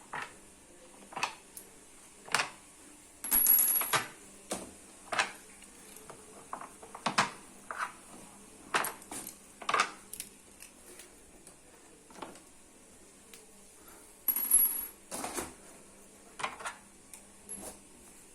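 Irregular metallic clinks and knocks of tools and small metal parts being handled, a couple of dozen in all, two of them with a brief high ring about three seconds in and again near fourteen seconds.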